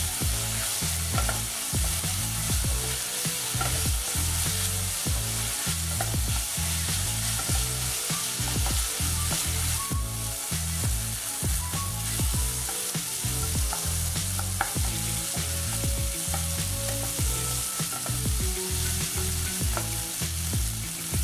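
Chopped onion, carrot, capsicum and tomato sizzling in ghee in a non-stick kadhai, stirred steadily with a spatula that scrapes and taps against the pan, frying until the tomato skins soften.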